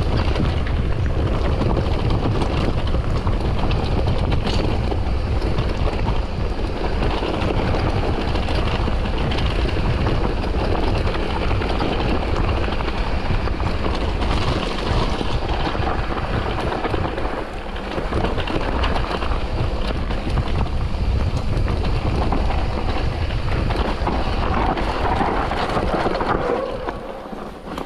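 Wind buffeting the microphone of a camera on a mountain bike descending fast: a loud, steady rushing noise that dips briefly about two-thirds of the way in and eases off near the end.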